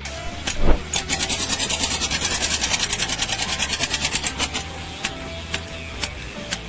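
A rapid, even rasping or scraping rhythm, about ten strokes a second for three to four seconds, followed by a few scattered clicks.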